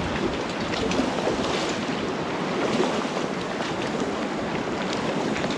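Small lake waves lapping and splashing against the shore, a steady wash full of small irregular splashes.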